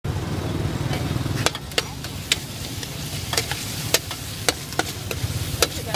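Metal spatula stir-frying in a steel wok: sharp clinks and scrapes of metal on the pan come at irregular intervals, roughly once or twice a second from about a second and a half in. Underneath are a low sizzle and a steady low rumble.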